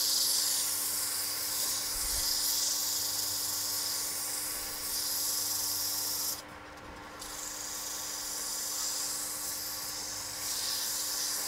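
Abrasive paper held by hand against a maple handle spinning on a wood lathe: a steady sanding hiss, lifted off briefly about six seconds in, over the lathe's steady motor hum.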